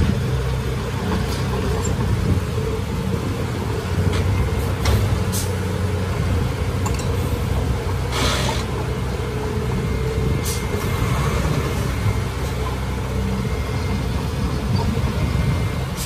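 Komatsu D31A bulldozer's diesel engine running steadily under load while it works soil, with a few sharp knocks and a brief hiss about eight seconds in.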